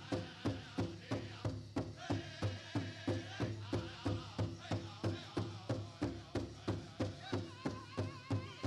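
Powwow drum group beating a big drum in a steady, even beat of about three strokes a second, with high-pitched singing of the dance song over it, the voices most clearly in the middle and near the end.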